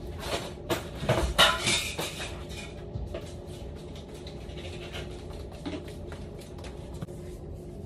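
Rustling and clattering of belongings being handled while unpacking a laundry basket, busiest and loudest in the first two seconds, then scattered light knocks over a steady faint hum.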